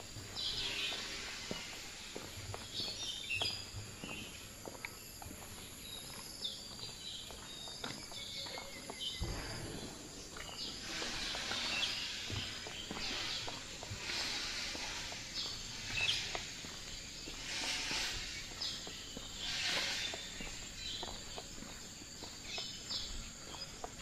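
Park ambience: birds chirping in short calls over a steady high-pitched insect drone, with footsteps walking along a path. A few brief hissing swells rise and fade in the middle of the stretch.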